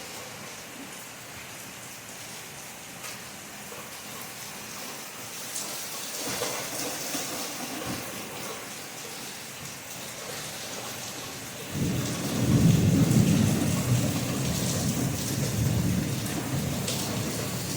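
Steady rain falling, with a low rumble of thunder rolling in suddenly about two-thirds of the way through and fading slowly.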